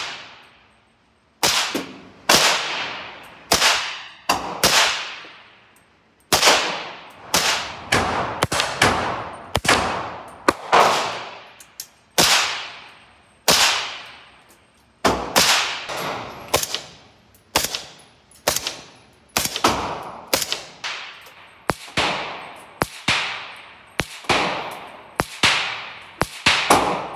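Suppressed Daniel Defense DDM4 PDW in 300 Blackout, fitted with a SilencerCo Omega 300 suppressor, fired semi-automatically: about thirty-five shots at an uneven pace of one to two a second, with short pauses, each shot followed by a fading echo.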